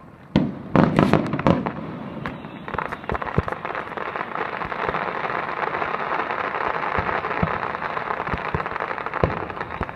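Fireworks display: a few loud booms in the first second and a half, then from about three seconds in a long, dense crackling with scattered sharp pops.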